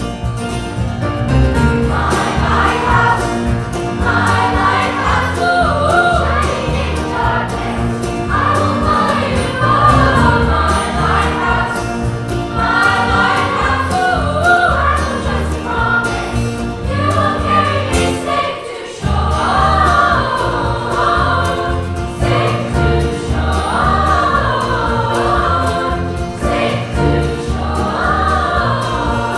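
Children's choir singing a gospel song together over an accompaniment with a steady low beat, with a brief drop in the music about two-thirds of the way through.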